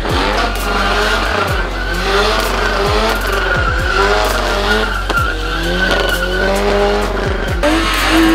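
Car engines revving hard, pitch sliding up and down, with tyres squealing in a long wavering screech during burnouts. Music runs underneath and takes over near the end.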